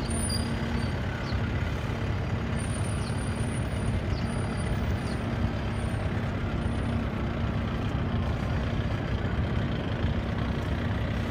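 A heavy engine running steadily: a low rumble with a steady hum over it, unchanging throughout.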